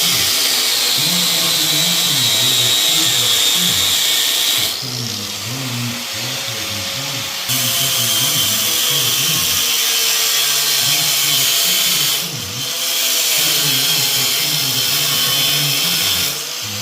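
Metalworking power tool running in long stretches of loud steady hiss with a high whine sliding slowly down. It cuts off abruptly twice for a few seconds and starts again at full level.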